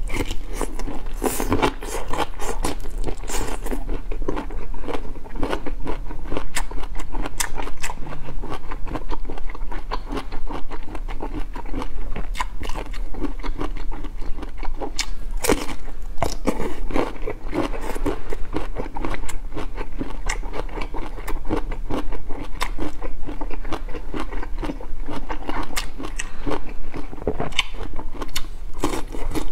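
Close-up mouth sounds of a person biting into and chewing a crunchy rolled food: a steady run of crisp crunches and wet chewing clicks, with a few sharper, louder bites scattered through.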